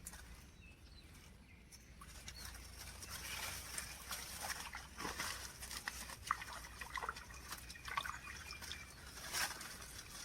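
Water sloshing and trickling, with irregular small splashes and drips, as a foam-float fishing line and its catch are handled at the water's edge. It starts quietly and grows busier after about two seconds.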